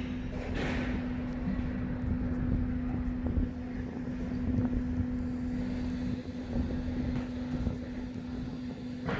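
Heavy engine machinery running with a steady low drone on one constant pitch over a rumble, and a brief swell of noise just after the start.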